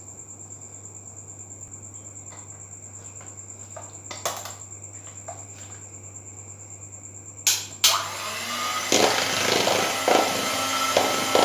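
Electric hand mixer: two sharp clicks about seven and a half seconds in, then from about eight seconds its motor runs steadily, the beaters whipping cream in a plastic bowl. Before that there is only a faint steady hum with a few light knocks.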